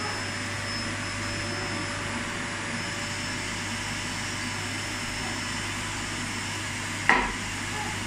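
Canister vacuum cleaner running steadily, with a steady hum and whine over its rushing noise. A single sharp knock about seven seconds in.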